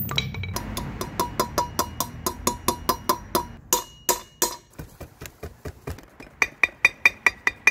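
Steel hammer striking a socket used as a bearing driver, working the bearings of a motorcycle's rear wheel hub and sprocket carrier; about four sharp, ringing metal blows a second. The failed hub bearing is being replaced. Near the end comes a run of louder blows with a brighter ring.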